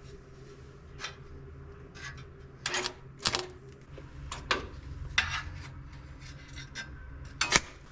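Harbor Freight welder tack-welding an exhaust pipe to a header collector: about half a dozen short, sharp bursts, each a fraction of a second long, with the loudest near the end, over a steady low hum.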